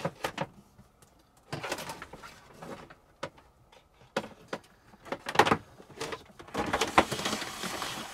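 A bundle of electrical wires is pulled by hand up through an opening in a cabinet. The wires rustle and scrape against the cabinet edges, with scattered knocks, and there is a longer stretch of rustling near the end.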